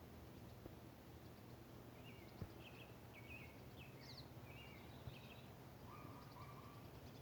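A songbird singing faintly in a string of short chirped notes over a low steady background rumble.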